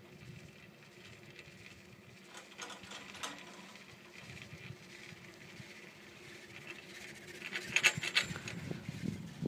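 Chairlift running, with a faint steady hum. A few sharp clicks come about three seconds in, near where the chair passes a lift tower, and a louder cluster of clicking and rattling follows near the end.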